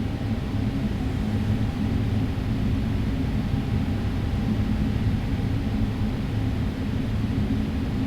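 Boeing 777-300ER's GE90 engines idling, heard from inside the cabin as a steady low rumble and hum.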